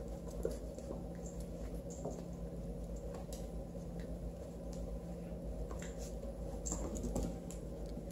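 Scattered light clicks and scuffles of a kitten and a pocket beagle wrestling, their claws tapping and skittering on a hardwood floor, over a steady low hum.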